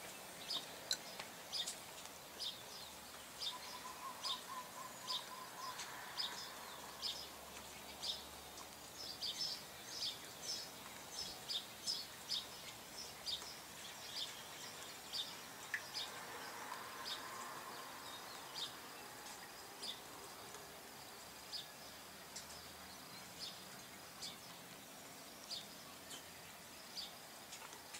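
Small birds chirping, short high-pitched chirps coming irregularly, about one or two a second, over a faint steady background hiss.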